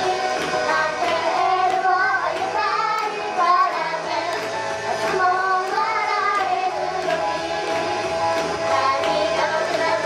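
Several young women singing a pop song live into handheld microphones over a backing track with a steady beat.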